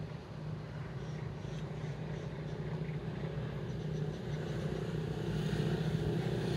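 An engine running steadily off-camera, a low hum that grows louder toward the end as it comes closer.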